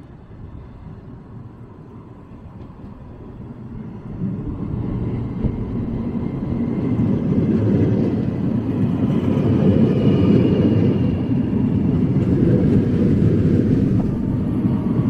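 NS yellow-and-blue double-deck train pulling in along the platform: a low rumble of wheels on rails grows from faint to loud as the train draws close and runs past. A faint high whine runs over the rumble in the second half.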